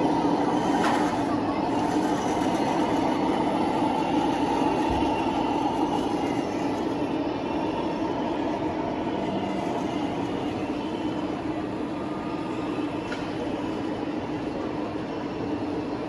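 Steady mechanical whirring of a 1/16-scale radio-controlled bridge-layer model's electric drive and gearing as it moves its bridge, slowly getting quieter.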